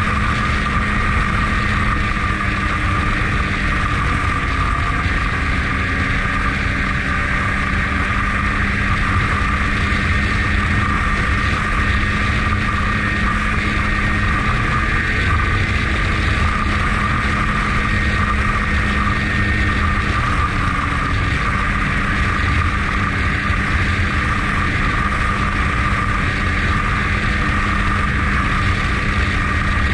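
Snowmobile engine running at a steady cruising speed along a snow trail, heard from the rider's seat, its pitch holding nearly even throughout.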